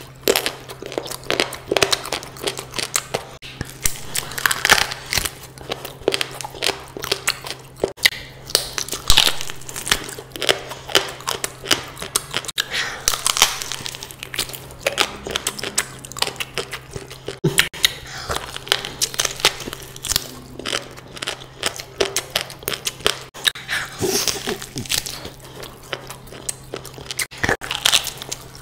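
Close-miked eating: irregular crunching, biting and wet chewing of meat, bone and rice, over a faint steady low hum.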